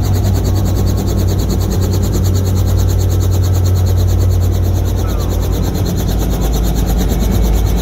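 Light helicopter running on the ground, heard from inside the cabin: a loud steady low hum with a fast, even pulsing over it.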